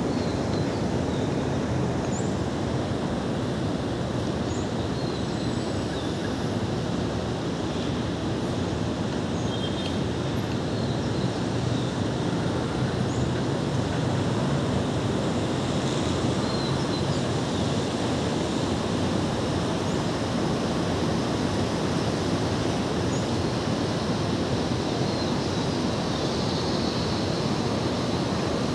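Steady outdoor background rumble with faint, short high chirps scattered through it.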